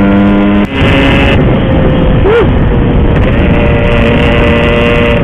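Yamaha RX-King two-stroke single-cylinder motorcycle engine running while riding. Its steady note dips briefly just under a second in, then carries on rougher and noisier.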